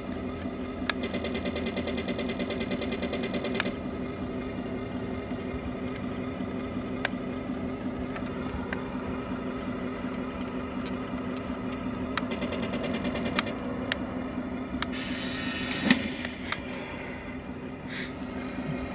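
Heng Long RC M1A2 Abrams model tank running over loose dirt: a steady hum from its drive motors and gearboxes, with fast ticking from the tracks for the first few seconds and scattered clicks. A short louder scrape ends in a sharp click about three quarters of the way in.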